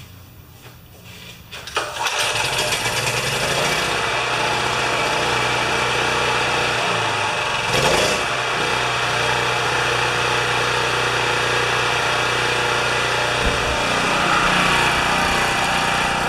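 Champion 3000-watt generator's small Honda-clone engine running on part choke. It gets much louder about two seconds in and then runs steadily, with a brief stumble about halfway through.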